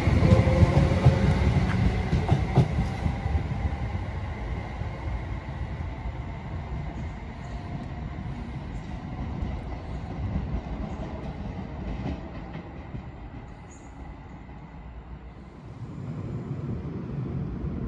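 Class 320 electric multiple unit moving away along the line: its wheel rumble and motor whine fade steadily over several seconds.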